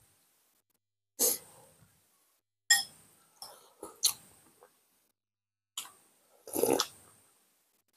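Close-miked eating sounds, people biting and chewing food, in short separate bursts with silence between.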